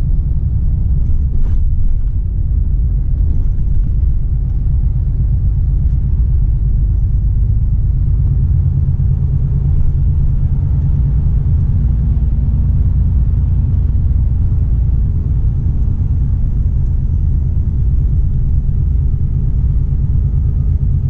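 Volvo FH 460 truck's 13-litre six-cylinder diesel pulling the truck along the road, a steady low engine and road rumble heard from inside the cab. A slightly higher engine note comes in about halfway through.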